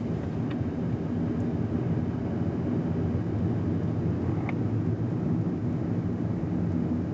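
Suzuki Hustler hybrid turbo kei car on the move: a steady low rumble of engine and tyres on the road, with no change in pace.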